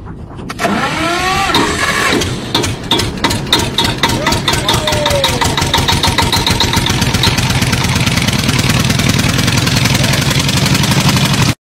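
An engine running loudly with a fast, even beat, getting louder about half a second in, with people's voices calling over it.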